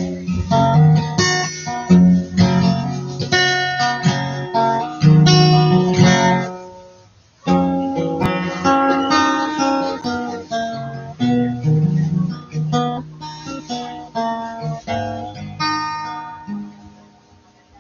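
Acoustic guitar played by hand, mixing strummed chords with picked single notes; the playing dies away and stops briefly about seven seconds in, then starts again.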